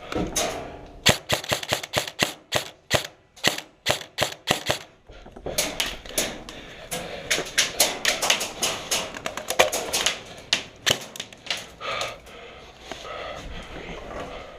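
Airsoft guns firing: many sharp, dry shots in quick irregular runs, densest through the middle and thinning out near the end.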